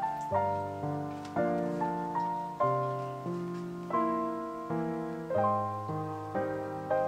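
Background piano music: a gentle melody of notes and chords, each struck and left to fade, a new one coming roughly every half second to second.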